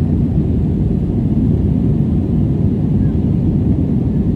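Airbus A321 cabin noise in the climb after takeoff: the jet engines and the airflow make a steady, even low rumble.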